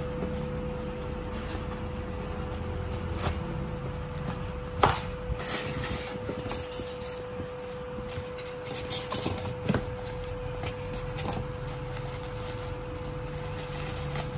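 Unpacking a boxed electric iron by hand: rustling and scattered knocks as polystyrene foam inserts and the plastic-wrapped iron are pulled out of a cardboard box, the sharpest knock about five seconds in. A faint steady hum sits underneath.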